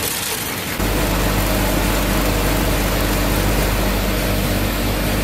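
Vibratory bowl feeder running: a steady low machine hum with small plastic LEGO parts rattling as they are shaken along its spiral track. The hum steps up and gets louder about a second in.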